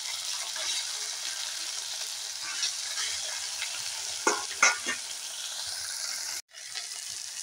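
Ground sesame paste frying in hot oil in a kadai, a steady sizzle. A few short knocks come just past four seconds in, and the sound cuts out for a moment about six and a half seconds in.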